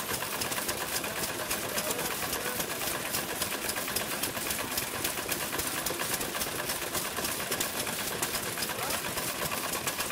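Several old stationary kerosene engines running together, a dense, rapid and steady clatter of firing and ticking valve gear.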